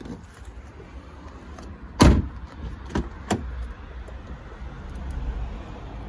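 Car door shut with one loud thud about two seconds in, then two lighter clicks about a second later as it is worked again. The door check strap, its loose bolt just tightened, no longer makes its cracking noise.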